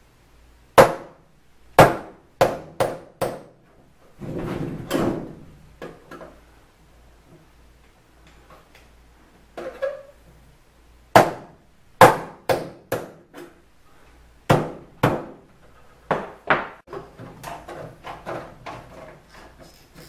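Hammer blows on a tool held against thin sheet metal, punching a starter hole: sharp metallic strikes in short runs of two to five, with pauses between. Near the end, a quicker run of lighter crackling clicks as tin snips begin cutting the sheet metal.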